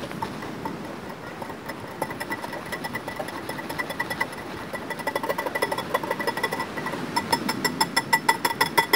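Rapid, rhythmic strikes of a kitchen tool on a hard surface, each with a short ringing tone, as sauce ingredients are worked into a paste. The strikes come about four a second and grow louder and quicker near the end.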